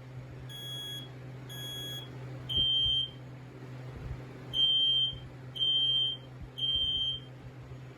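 FireX AD smoke alarm sounding: three beeps, a pause, then three more, in the temporal-3 alarm pattern. The horn ramps up in volume, so the first two beeps are quieter and the rest are at full loudness.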